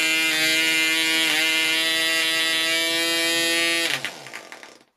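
PAW .55 model aero diesel engine running at steady high revs with its propeller, started from cold with two choke flicks. It cuts out about four seconds in and spins down.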